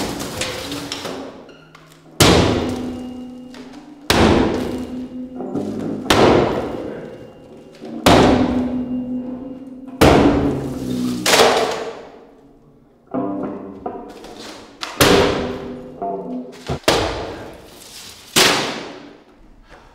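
Large wall mirrors struck hard with a bat, about ten blows roughly two seconds apart. Each blow is a sharp crack of glass with a ringing decay.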